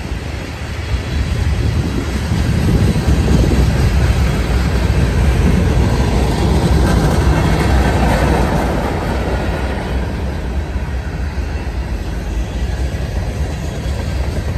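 Freight train cars rolling past on the nearby track: a steady rumble and rattle of steel wheels on rail. It swells about two seconds in and eases off after about nine seconds.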